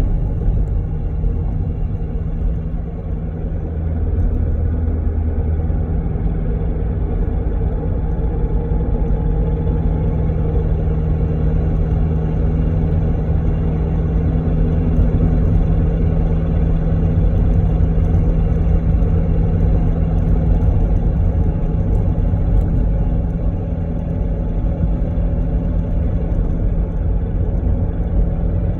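Steady low mechanical rumble with a constant hum that holds one pitch.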